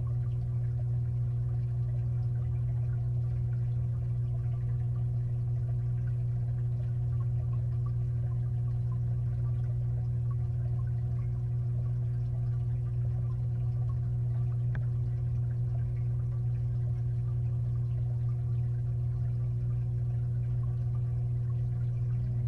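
Steady low hum of a 55-gallon aquarium's filter running, heard from underwater inside the tank, with a faint wash of moving water and scattered small ticks.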